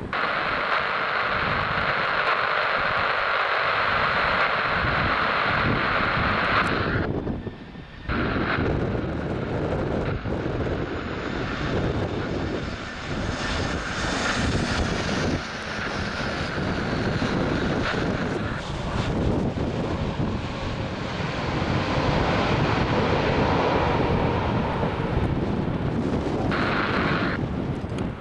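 Jet airliner engines running as the plane passes, a wide rumble with a faint whine gliding in pitch in the middle. A hiss from the air-band radio fills the first several seconds and returns briefly near the end.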